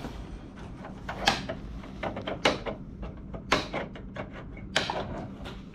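Wire mesh being handled and rolled, giving a series of sharp knocks, scrapes and rattles; the four loudest come about a second apart, with smaller clicks in between.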